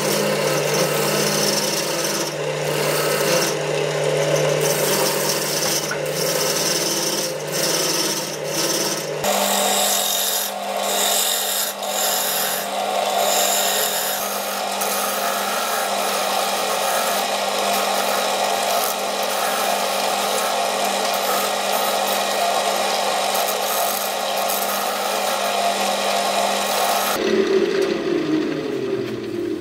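JET JWL-1443 wood lathe running, its motor a steady hum under the scraping and hissing of a gouge cutting a spinning silverberry blank. Near the end the cutting stops and the lathe spins down, its hum falling in pitch.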